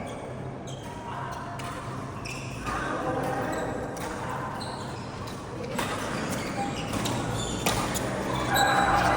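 Badminton rally in a hall: repeated sharp clicks of rackets hitting the shuttlecock, with short high squeaks of shoes on the court floor and voices talking in the background.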